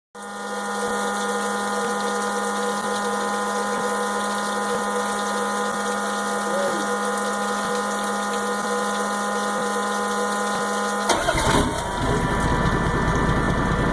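A steady electric hum, like a small pump or blower motor, runs for about eleven seconds. Then the boat's Volvo Penta turbo diesel is cranked briefly, catches, and settles into a low, even idle.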